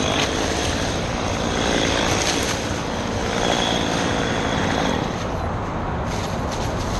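Stihl MS 193 T top-handle chainsaw's small two-stroke engine idling steadily between cuts.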